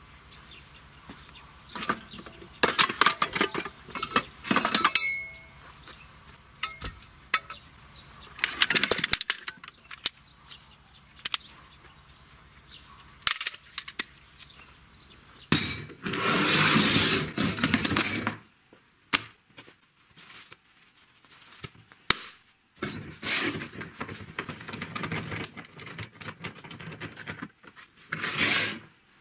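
Rusty scrap car parts, such as shock-absorber struts, brake discs and coil springs, being shifted and knocked together. The metal clinks and knocks come irregularly, with a few longer stretches of rattling and scraping.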